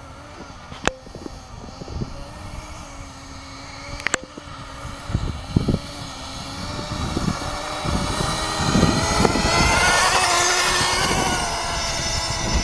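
Small nitro glow-fuel engine of an RC snowmobile running at a steady pitch, its buzz growing louder as the sled comes closer, loudest about ten seconds in. Two sharp clicks about one and four seconds in, and low rumbles in the middle.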